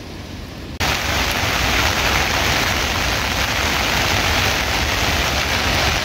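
Heavy rain falling, a loud steady hiss that starts abruptly about a second in.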